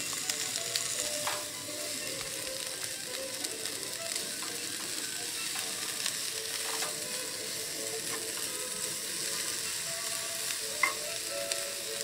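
Sliced peppers and onions sizzling steadily in a frying pan on a two-burner propane camp stove. A spatula stirs them and taps the pan sharply a few times.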